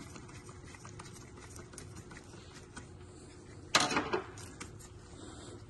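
Faint, scattered light clicks and taps of a screwdriver working a hose clamp in an engine bay, with one brief louder scuff about four seconds in.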